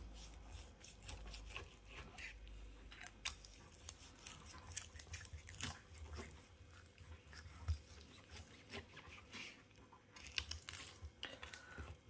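A kitchen knife sawing through the crispy crackling of a roast pork loin: faint, irregular crunches and crackles.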